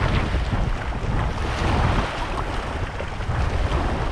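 Wind buffeting the microphone, with small waves washing and foaming over a rock ledge at the water's edge.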